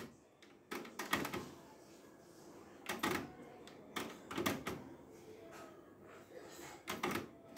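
Kenwood KX-W893 cassette deck's transport keys being pressed, with mechanical clicks and clunks from the tape mechanism as it switches between stop and fast winding. The clicks come in small groups, about a second in, near the middle and near the end.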